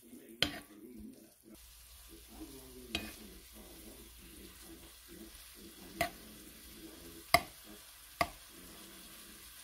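Spice-coated chicken pieces sizzling as they fry in a pan, stirred with a metal spoon. The spoon knocks against the pan five times, the loudest about seven seconds in.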